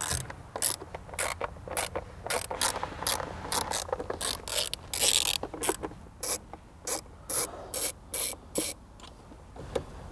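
Quarter-inch-drive hand ratchet clicking in short irregular runs as screws on the airbox cover are backed out, with a brief scraping rustle about halfway through.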